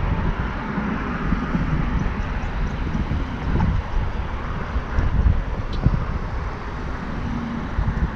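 Wind buffeting the microphone: a steady low rumble that swells unevenly in gusts.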